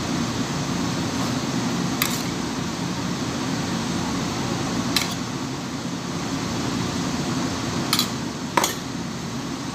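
Metal spoon clicking against a stainless steel tin of tobiko four times, the last two close together near the end, over a steady fan hum.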